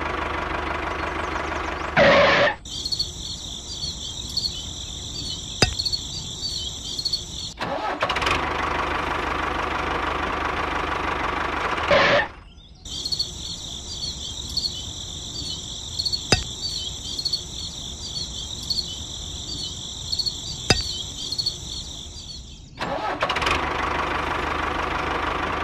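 Engine of a miniature model tractor running steadily in three stretches: at the start, from about 8 to 12 seconds, and again near the end. In between, a high fluttering hiss with a few sharp clicks takes over.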